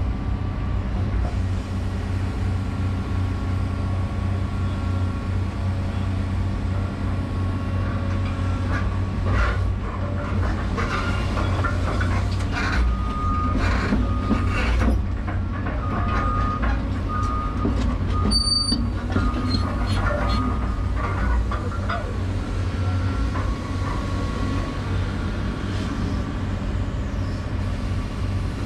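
Excavator engine and hydraulics running steadily, heard from inside the cab. Through the middle, steel shoring panels and rails clank, scrape and squeal as the bucket pushes a slide rail panel down.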